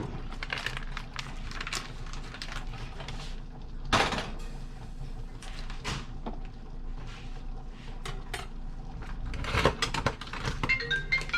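Utensil clinking, knocking and scraping against a pan while macaroni is mixed, with a few louder knocks. Near the end a phone's marimba-like ringtone starts.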